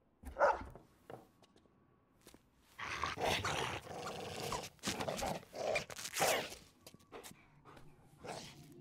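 A dog growling and barking in bursts as it tugs at a toy: one short burst just after the start, then longer stretches of growling in the middle.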